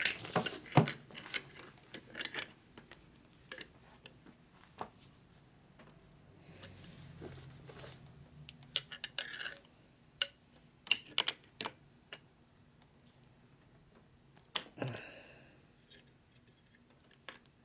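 Irregular sharp clicks and light metallic ticks, some in quick little runs, as needle-nose pliers bend a stiff new stainless-steel cotter pin into a brake caliper's pad pin.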